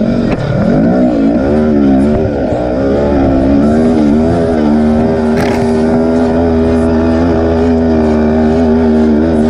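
Quad bike engine heard from the rider's seat, revving up and down over the first few seconds, then held at a steady high pitch at full throttle as it pulls up a steep sand slope.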